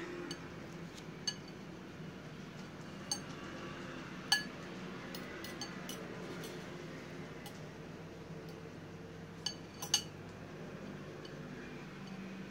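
A metal fork clinking against a ceramic bowl of cut fruit, about five light clinks spread unevenly, two of them close together near the end, over a low steady room hum.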